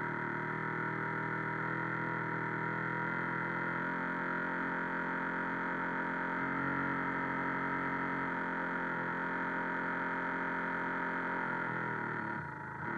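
A radio-controlled boat's motor running at a steady speed, a steady whine with many overtones heard from on board. It falls away about twelve seconds in.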